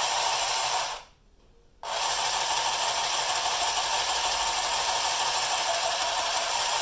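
Battery-powered handheld sewing machine running with a steady mechanical rattle. It stops about a second in and starts again just under a second later.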